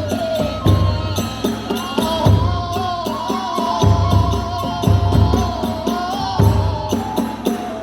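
Kagura hayashi: a transverse bamboo flute plays a held, wavering melody over steady taiko drum beats and the clash of small hand cymbals.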